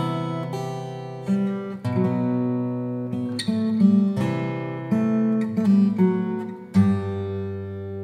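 Acoustic guitar music: plucked notes and chords changing every second or so, with a final chord struck near the end and left to ring.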